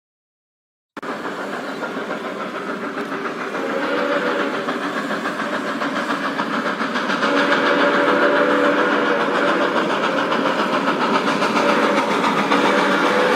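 Steam train running, starting abruptly about a second in and growing steadily louder, with a fast rhythmic rattle and a held tone that comes and goes.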